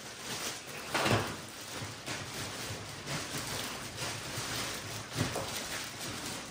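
Rustling and crinkling of packaging and leather seat covers being handled and unpacked, with louder rustles about a second in and again about five seconds in.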